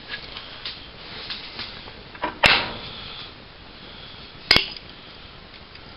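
Handling clicks and two sharp knocks, about two seconds apart, as the stiff wheel-guard release on a Ryobi P420 angle grinder is worked by hand.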